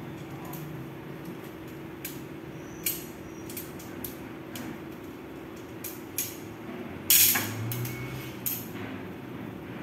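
Metal tent pole sections clicking and clacking as they are unfolded and fitted together, a few scattered knocks with one louder clack about seven seconds in.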